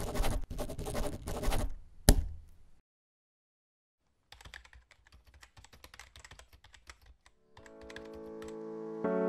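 Title sound effects: a pen scratching on paper in quick strokes, ending in a sharp click about two seconds in. After a short silence, quiet rapid keyboard typing, while music with held keyboard chords fades in near the end.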